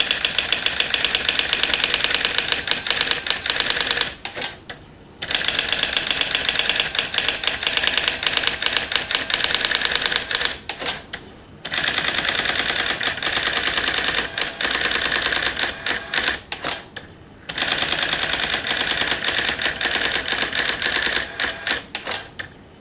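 Brother AX-20 electronic daisy-wheel typewriter printing a line of ASCII art under computer control: a fast, even run of sharp character strikes, broken by brief pauses about every five to six seconds.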